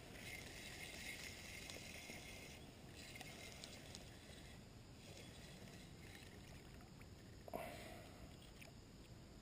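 Near silence: faint water and boat noise on a lake, with a brief soft knock about seven and a half seconds in.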